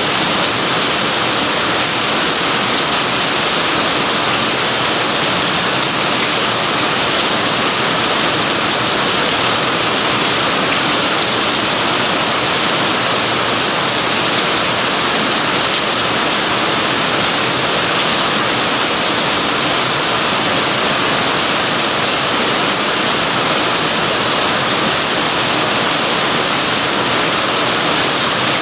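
Heavy rain falling steadily on dense tropical foliage and pavement, with water streaming off the ends of the wooden roof beams overhead.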